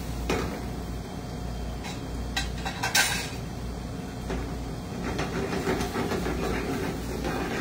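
Spaghetti sizzling and steaming in an aluminium pan over a gas burner against a steady low rumble, with a brief louder hiss about three seconds in and a few clicks. Near the end a spatula stirs through the pasta in the pan as it is being finished.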